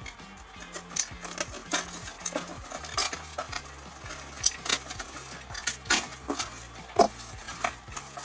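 Box cutter slicing and scraping through packing tape and cardboard on a shipping box, in a string of irregular sharp clicks and scrapes, with the cardboard flaps being pulled open near the end.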